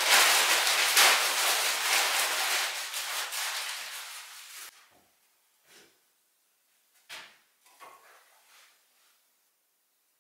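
Loud crinkling, crackling rustle of paper being crumpled into a wood stove, fading over about five seconds and stopping abruptly. Then a few soft knocks and a sharp scratch about seven seconds in, as a match is struck to light the stove.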